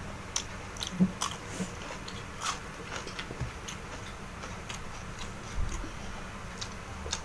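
A person chewing and biting food, with irregular crisp crunches and wet mouth clicks.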